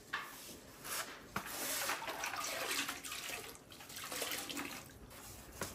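Wet sponge being rubbed over a ceramic floor tile, a rough watery swishing that is loudest around the middle.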